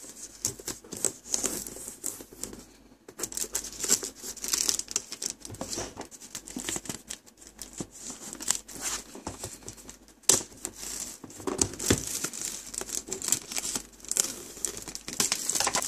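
Clear plastic shrink-wrap being slit with a knife and peeled off a cardboard box, crinkling and tearing in an irregular crackle, with a few sharper clicks.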